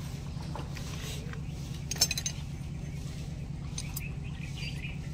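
A sharp ringing metal clink about two seconds in, as a steel tool or part strikes metal during assembly of a tractor's crown wheel and differential case, with a few lighter clicks near the end. A steady low hum runs underneath.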